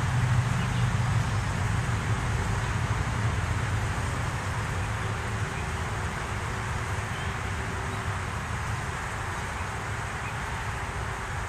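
Steady outdoor background noise with a low rumble that fades over the first few seconds.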